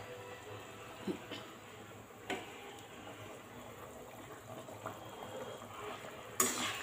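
Thick fish curry simmering and bubbling in a pan, with a few light clicks of a ladle against the pan and a louder scrape of the ladle near the end.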